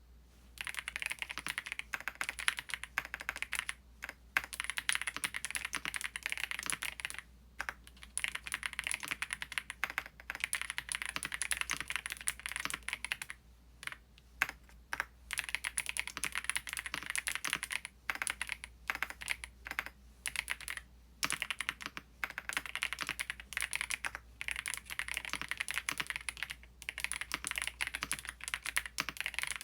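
Typing on a Qsenn Q104 mechanical keyboard with PBT keycaps and Haimu Midnight switches: rapid, continuous keystrokes in long runs, broken by brief pauses every few seconds.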